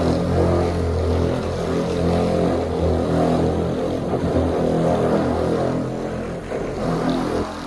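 Electric paint polisher (buffer) running steadily, a low motor hum, working buffing compound over car paint to clean overspray off the painted striping during paint correction.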